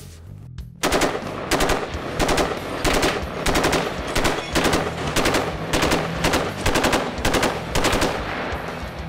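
HK-93 semi-automatic 5.56 mm rifle fired in a long rapid string of shots, about three to four a second, starting about a second in.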